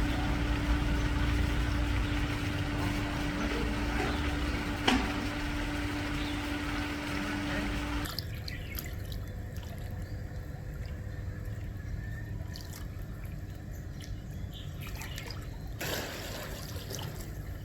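Water running and trickling as a swimming pool's water is being changed, with a steady low hum that cuts off abruptly about halfway through.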